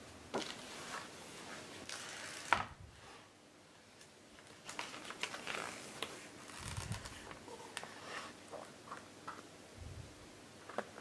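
Large pages of a hardcover picture book turned by hand: paper rustling and flapping among light taps and clicks, with one sharper tap about two and a half seconds in.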